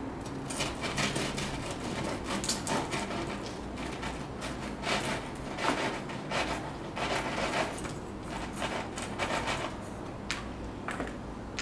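Long knife sawing back and forth through the crust of a homemade wholemeal loaf on a wooden cutting board, with repeated rasping strokes.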